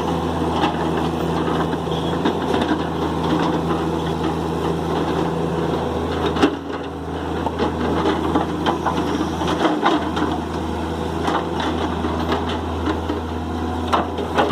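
Diesel engine of heavy machinery, an excavator or a truck, running steadily, with a brief dip about six and a half seconds in and scattered knocks and clatter near the end.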